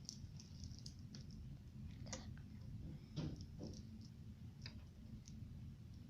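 Scattered faint clicks and taps over a steady low hum.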